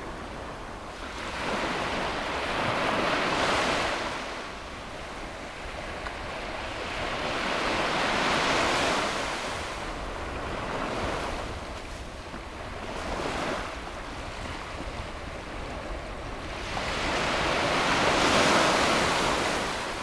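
Small waves breaking and washing up a sandy beach, the surf swelling and falling back about every five seconds, with the last surge the loudest.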